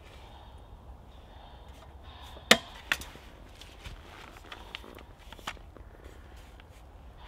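A sharp, loud knock about two and a half seconds in, a second one just after it, then a few lighter clicks and knocks as camping gear (a backpack and a pole-mounted camping light) is handled.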